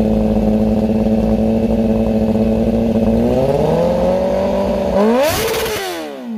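2021 Kawasaki ZX-10R's inline-four engine revving through an IXIL slip-on exhaust: held at steady revs, climbing to a slightly higher pitch about three seconds in, then a sharp throttle blip near the end that shoots up and falls straight back.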